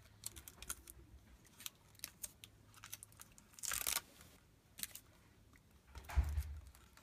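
Protective plastic backing being peeled off the adhesive tape of an LED light strip: small clicks and crinkles, with a short tearing peel about four seconds in. A low thump comes near the end.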